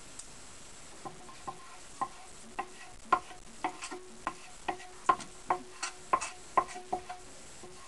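Wooden butter paddles (Scotch hands) patting and slapping a block of fresh butter into shape. A run of about seventeen short woody knocks, two or three a second, starts about a second in and stops shortly before the end.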